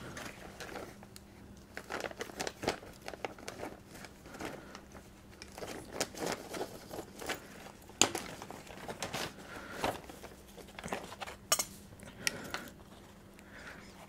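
Plastic parts bags crinkling, with scattered small clicks from hand tools and a brass fitting being handled.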